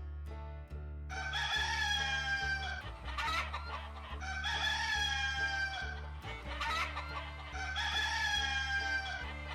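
A rooster crowing three times, each crow a long held call that drops at the end, with hens clucking between the crows. Steady low background music runs underneath.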